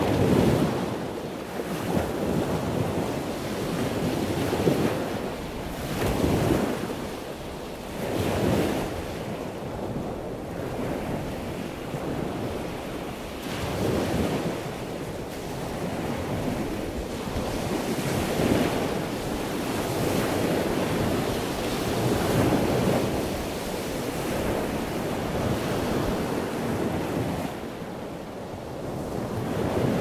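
Strong seaside wind buffeting the microphone in irregular gusts, a rushing noise that swells and drops every second or two.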